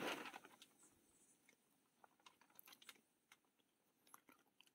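Near silence, with a few faint, scattered clicks; the tail of the preceding sound fades out in the first half second.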